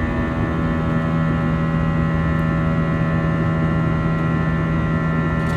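Airbus A321 cabin noise after takeoff: the jet engines' steady drone, with a few constant tones, over the rush of air past the fuselage.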